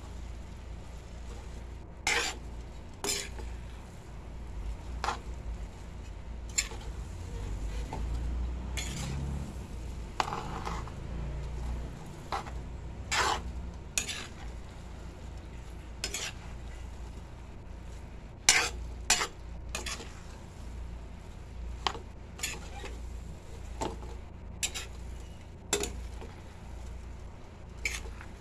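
Metal tongs tossing and stirring rice noodles in a large aluminium wok, clinking and scraping against the pan at irregular moments. The noodles sizzle faintly underneath.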